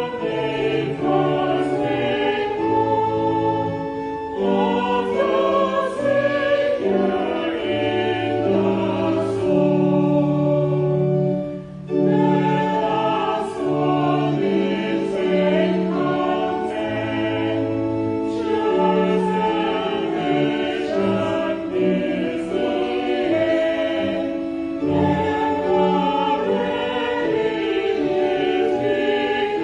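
A church choir singing a hymn together, with a short break between phrases about twelve seconds in.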